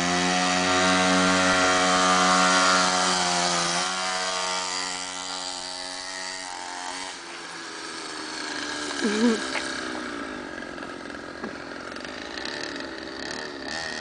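Two-stroke 49cc pocket dirt bike engine running at a high, buzzing rev, dropping in pitch about four seconds in and then growing fainter as the bike moves away.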